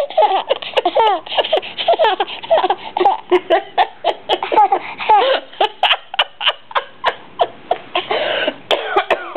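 Six-month-old baby laughing in a quick run of short giggling bursts, a few a second, with one longer stretch of laughter near the end.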